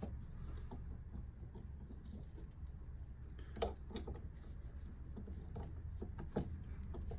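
A few faint clicks and taps from the Tecumseh electric starter's small parts being handled during reassembly, over a low steady hum.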